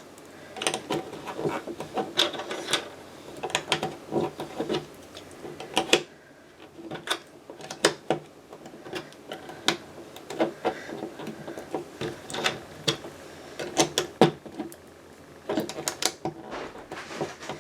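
Plastic Lego bricks clicking and clattering as they are handled and pressed together, a string of irregular sharp clicks.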